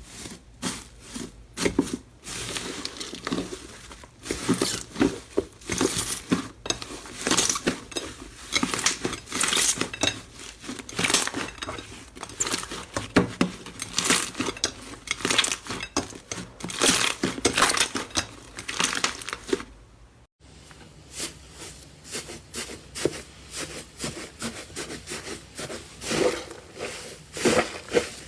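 Slime being squeezed, pressed and stretched by hand, giving dense irregular crackling and popping clicks, with a brief drop-out about twenty seconds in.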